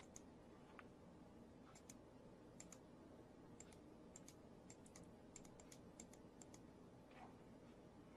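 Faint, irregular computer mouse clicks, often in quick pairs, over near silence, with one sharper click right at the start.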